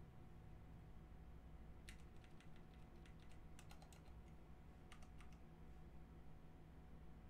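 Faint keystrokes on a computer keyboard: a few taps about two seconds in, a quicker run a second later, and a couple more about five seconds in, over a low steady hum.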